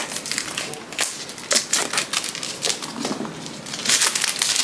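Unboxing an iPad: scattered clicks and taps as the box and its packaging are handled, becoming denser crinkling of wrapping near the end.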